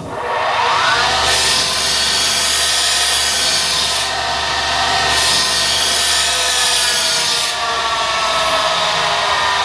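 Cobra CB350MA abrasive cut-off chop saw's three-phase motor starting and spinning up to speed with a rising whine, then running steadily. Two spells of harsh, high, sawing-like hiss over the whine, the second a second after the first ends.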